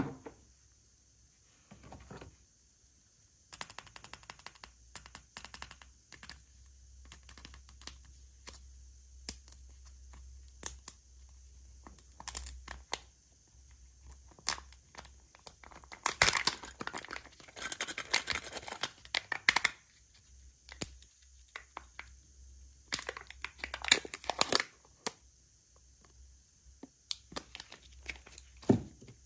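Packaging being crinkled and torn open by hand: irregular crackling and sharp clicks, coming in denser bursts of rustling and ripping a little past the middle and again later.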